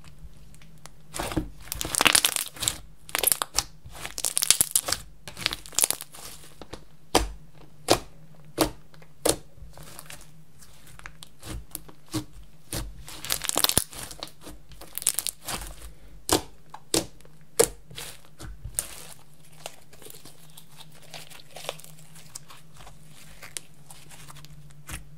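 Hands squeezing, stretching and folding a large mound of glossy black slime, giving sticky crackles and pops. They come in dense clusters and grow sparse near the end.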